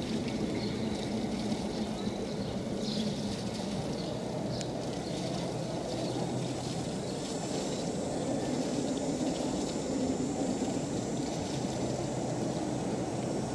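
Distant two-masted schooner running under engine power with its sails furled, a steady low hum over a constant rumble. A faint high, steady whine joins about halfway through.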